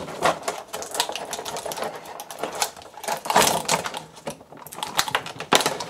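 Plastic toy packaging being worked and cut open by hand to free an action figure: a quick run of sharp clicks and crinkling rustles.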